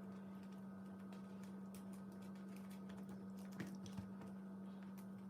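Faint small clicks and crackles of slime being pressed and handled, with two louder clicks about three and a half and four seconds in, over a steady low hum.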